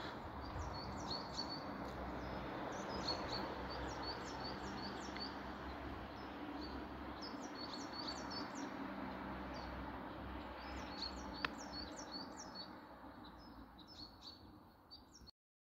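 Small birds chirping: many short, high notes that fall in pitch, repeated in loose runs over a steady outdoor background hiss. There is one sharp click about eleven seconds in, and everything fades out near the end.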